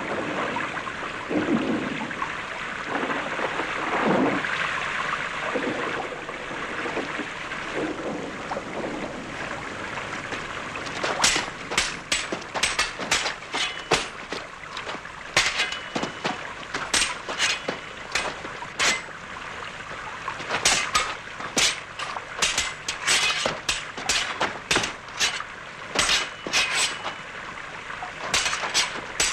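Steel sabres clashing in a duel: sharp metallic clangs, some with a short ring, coming in quick flurries of exchanges from about eleven seconds in. Before that there is only a steady rushing noise.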